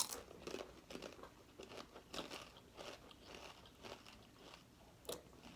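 A person chewing crunchy spicy chips: a run of faint, irregular crunches, with one sharper crunch about five seconds in.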